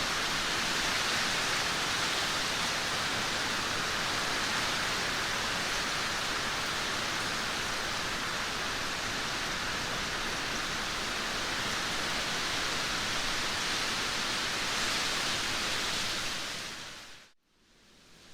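Heavy rain pouring down as a steady, even hiss. Near the end it fades out to a brief moment of near silence, then fades back in more softly.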